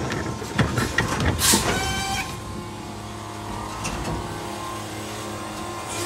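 Electric Mack LR garbage truck with a New Way Sidewinder side-loader body at work: several clanks and knocks, a short burst of hiss about one and a half seconds in with a brief rising whine, then a steady electric hum.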